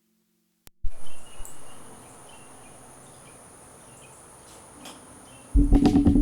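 Steady high buzz of insects with faint bird chirps. A loud bang about a second in fades away, and a burst of several loud bangs comes near the end: gunfire from a nearby gun range.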